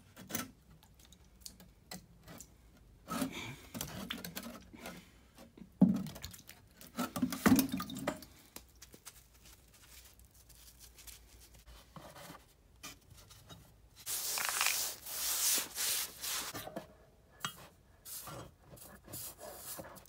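A soldering iron's cellulose cleaning sponge being wetted with running water: a few handling rubs and knocks, then water runs over it for about three seconds, followed by squeezing and dripping sounds.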